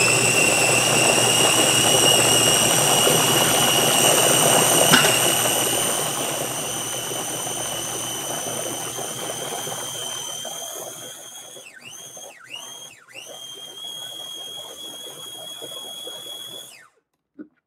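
Ninja mini chopper's motor running, blending pancake batter that has whole oats in it, with a steady high-pitched whine. About two-thirds through the whine dips in pitch and recovers three times in quick succession. It grows quieter over the second half, then stops abruptly.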